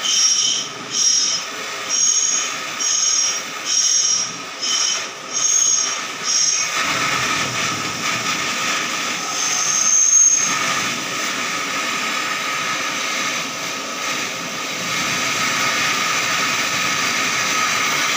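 Portable butane-canister gas torch burning with its flame on aluminium. For the first seven seconds the flame sputters in pulses about once a second with a high whistle, then it settles into a steady hiss, with a brief higher whistle about ten seconds in.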